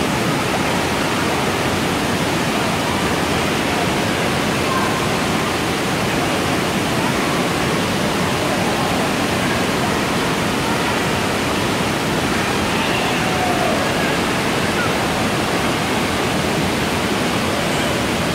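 Steady rush of water filling an indoor water park hall, with faint distant voices now and then.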